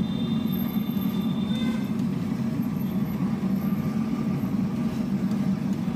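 Banana chips frying in a large kadhai of hot oil, sizzling steadily over a loud, steady low rumble.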